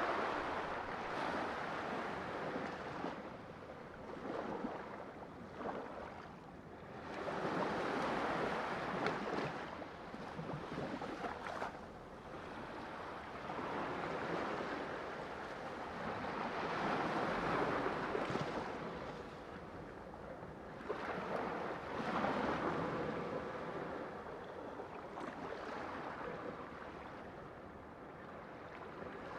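Sea waves breaking and washing up the shore, swelling and fading in slow surges every several seconds.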